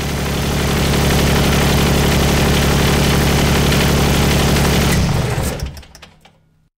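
An engine running steadily with a rapid firing pulse. It swells over the first second, holds, then fades out over the last couple of seconds.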